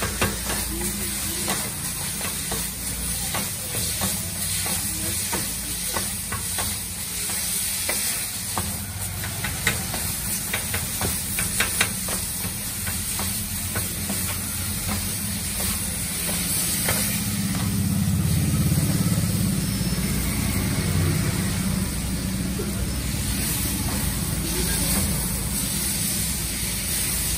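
Metal griddle scrapers clacking and scraping on a flat-top steel griddle as chicken shawarma filling is chopped and turned, over a steady sizzle of frying. The clacks are thick in the first half; a low background rumble swells past the middle.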